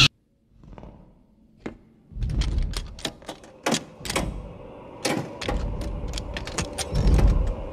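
Metal lever door handle being turned and rattled from the other side: a run of sharp clicks and knocks from the handle and latch, with low rumbles underneath, as the door is worked open.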